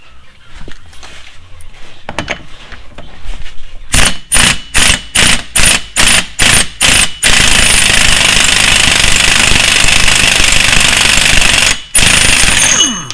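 Air impact wrench hammering on a car's large hub axle nut: about eight short bursts a few seconds in, then a long continuous run of hammering with a brief pause near the end as the nut comes off.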